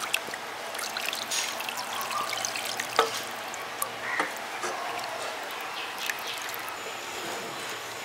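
Cow's milk being poured steadily into a hot kadai, a continuous pouring and trickling, with a few short knocks about three to four seconds in.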